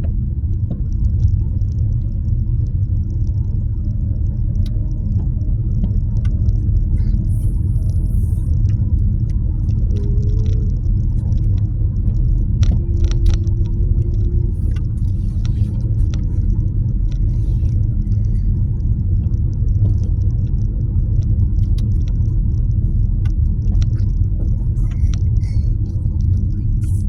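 Nissan Qashqai 1.2 turbo petrol car running with a steady low rumble and a few faint ticks, heard after its rattling, buzzing noise was fixed.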